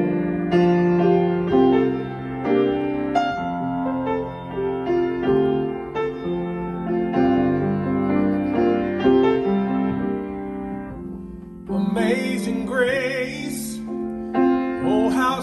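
Grand piano playing a slow, sustained passage of single chords and notes. About twelve seconds in, a man's voice enters, singing with vibrato over the piano.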